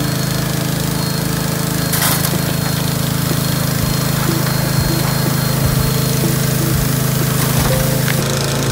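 Small gasoline engine driving a water pump, running steadily at constant speed, with water spraying from the spray bars and rushing through a sluice box.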